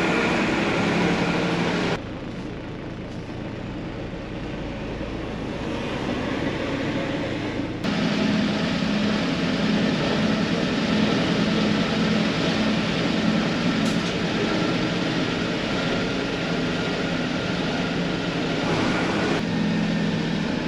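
Mercedes-Benz 1120 truck's diesel engine running steadily under way, heard from inside the cab along with road noise. The sound drops abruptly about two seconds in and comes back up, fuller, near eight seconds.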